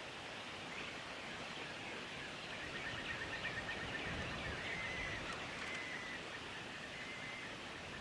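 Faint bird calls over a steady hiss: a quick run of short, high notes, then three longer held notes.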